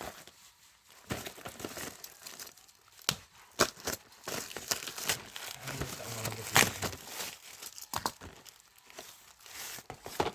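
Parcel packaging being crinkled, rustled and torn open by hand in irregular crackling bursts, with a few sharper rips.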